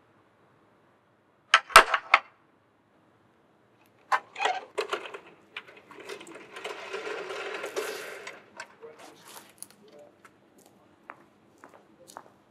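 An iron door bolt and lock being worked, with a sharp burst of metallic clanks and clicks, more clicks a couple of seconds later, then a longer rattling scrape. Scattered light ticks follow near the end.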